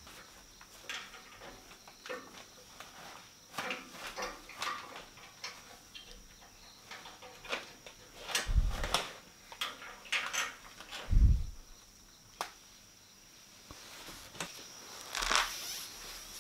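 Metal door hasp and padlock being handled: scattered light clicks and metallic rattles, with two dull thumps partway through and a louder clatter near the end.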